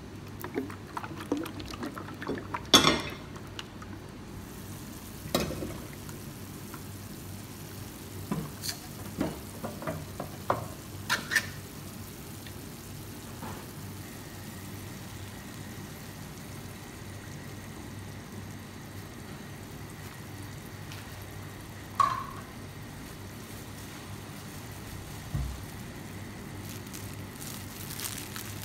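Cooking sounds at a pan of vegetable curry as a tin of coconut milk is handled and the milk is stirred in. A run of clicks and knocks in the first dozen seconds, loudest about three seconds in, is followed later by a single sharp clink and a low thump, over a steady low hum.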